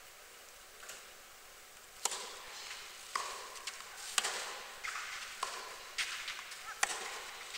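Tennis ball struck back and forth by rackets in a rally: a series of sharp hits about a second apart, starting about two seconds in with the serve.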